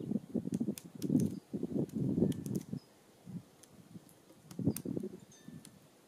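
Outdoor bird feeder ambience: irregular low rumbling gusts, like wind buffeting the microphone, loudest in the first half, with a few sharp taps and faint, short, high bird chirps.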